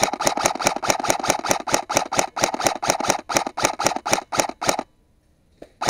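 Electric airsoft rifle (Lancer Tactical M4 SD AEG) firing a long full-auto burst of rapid, evenly spaced clicking shots. The burst stops suddenly about five seconds in, and a second burst starts just before the end.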